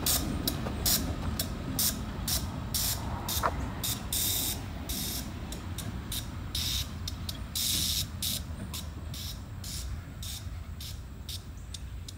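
Empty hopper freight train rolling away, a low rumble of wheels on rail slowly fading, with short irregular hissing bursts over it.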